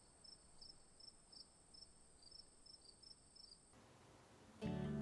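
Faint insect chirping: a steady high trill with short chirps repeating a few times a second, stopping a little before the end. Near the end, acoustic guitar music starts and is the loudest sound.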